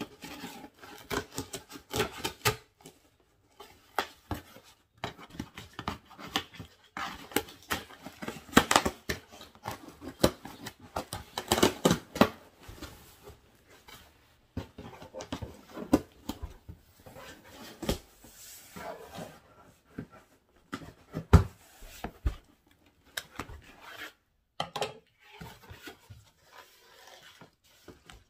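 Scissors cutting packing tape on a cardboard shipping box, with tape crackling and cardboard scraping in an irregular run of short snaps and knocks. Near the end the flaps are opened and plastic packaging rustles.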